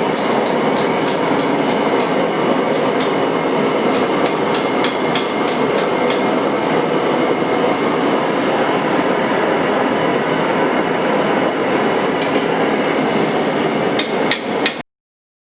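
Steady, loud rushing noise of workshop machinery, with scattered light ticks through it and a few sharper ticks just before it cuts off abruptly near the end.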